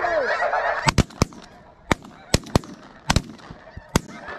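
A volley of about nine shotgun shots in quick, uneven succession from several hunters firing on a flock of snow geese, with the flock's calling at the start dying away as the shooting begins.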